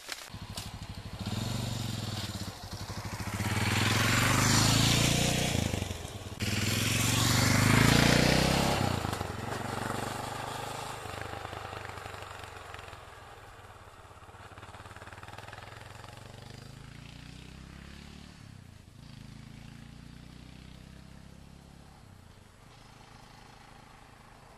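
Motorcycle engine accelerating through the gears: the pitch rises, drops at a gear change, and rises again. After that the engine sound fades steadily as the bike moves off into the distance.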